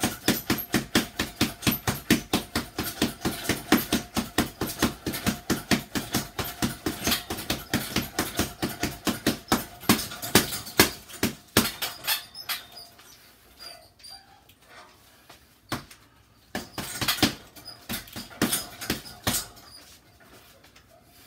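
Boxing gloves striking a teardrop-shaped heavy bag in a fast flurry of about five punches a second. After about twelve seconds it slows to scattered, separate hits.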